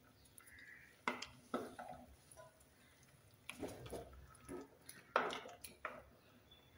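Wooden spatula stirring soft boiled elephant foot yam cubes in a clay pot: a handful of short knocks and scrapes against the pot, a little over a second in, again around three and a half seconds, and near five seconds.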